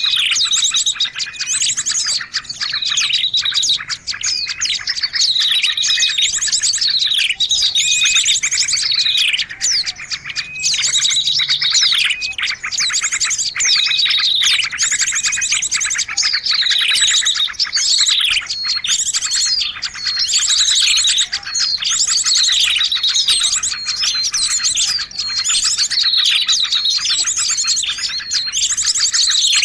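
Many small birds chirping and calling at once in a dense, busy chorus of quick falling whistled notes and twitters: a lure recording of small-bird calls made to draw small birds in.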